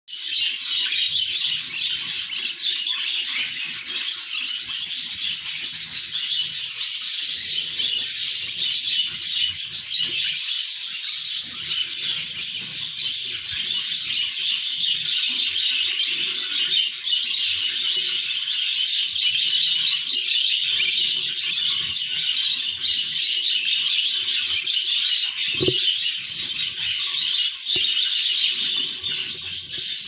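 Budgerigars chattering continuously: a dense, raspy, unbroken twittering. A single soft knock comes near the end.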